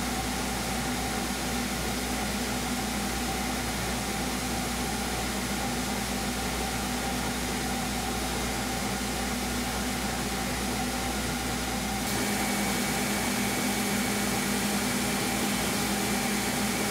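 Belt grinder running steadily, its belt sanding a knife handle on a small-wheel attachment to shape it. The pitch and tone of the running shift once about twelve seconds in.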